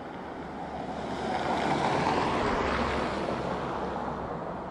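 Airbus A321-231 jet airliner on final approach, its IAE V2500 turbofans making a rushing jet noise that swells to a peak about two seconds in and fades as the aircraft passes.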